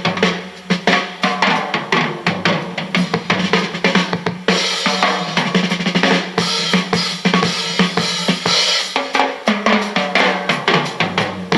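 Drum-heavy music with a fast, steady beat of bass drum, snare and cymbals, played from cassette through a Panasonic RS-466S boombox's speakers in a sound test.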